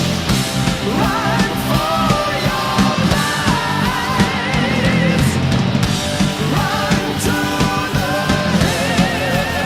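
Rock music with a sung vocal line and drums.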